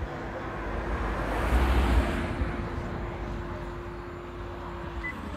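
A vehicle passing on the road, building to its loudest about two seconds in and then fading away. A steady low hum runs underneath and stops near the end.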